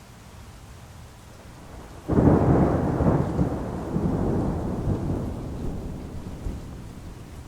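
A thunderclap about two seconds in, starting suddenly and rumbling on for several seconds as it fades, over a steady hiss of heavy rain.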